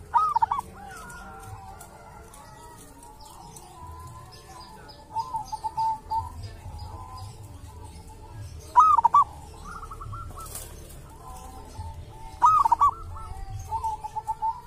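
Zebra dove (perkutut) cooing: loud phrases of quick, rising-and-falling notes and short trills, repeated four times a few seconds apart. Small birds chirp faintly in the background.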